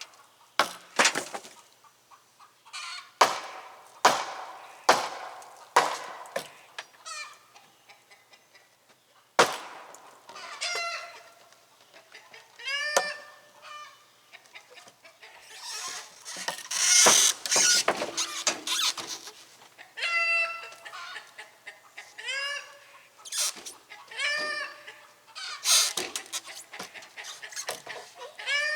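Chickens clucking in a run of short, repeated calls, with several short sharp sounds in the first few seconds.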